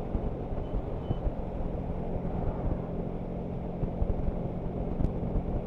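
1100cc V4 motorcycle engine running steadily while cruising at about 50 mph in a high gear, under a steady rush of wind and road noise.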